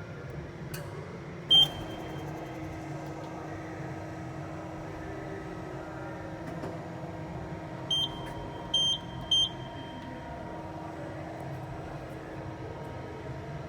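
Kia Turn 15 CNC lathe running with a steady hum. A short high electronic beep sounds about a second and a half in, and three more short beeps follow around eight to nine and a half seconds in.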